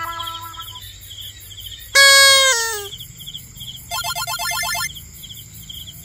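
Night insects, likely crickets, chirping steadily in a quick repeating pattern. A loud pitched sound falls in a glide about two seconds in, and a rapid pulsed warble lasts about a second around four seconds in.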